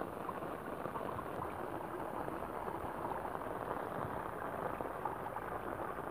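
Rain falling on shallow muddy water with water running in a small channel: a steady wet hiss scattered with small drip-like ticks.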